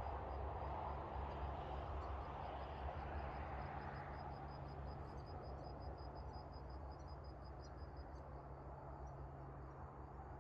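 Vehicle engine idling with a steady low hum, over a rushing noise that fades over the first few seconds. A faint, fast, high ticking runs through the middle.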